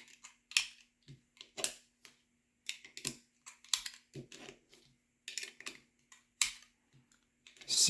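Irregular clicks and light knocks of a 3D-printed plastic magazine loader and .22 Magnum cartridges as rounds are pressed one after another into an AMT Automag II magazine.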